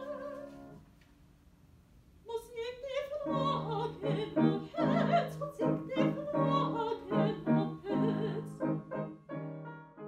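A woman singing classical opera with wide vibrato over piano accompaniment. The music fades away in the first second; after a short pause the voice re-enters about two seconds in with a rising phrase and carries on through a run of held notes.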